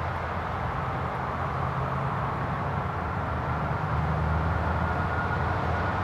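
Steady low rumble of distant traffic, getting a little louder about four seconds in.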